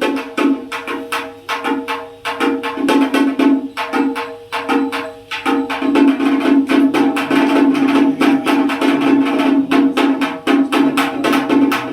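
A pitched drum struck in a fast, steady rhythm of about four or five strokes a second, with short breaks twice in the pattern.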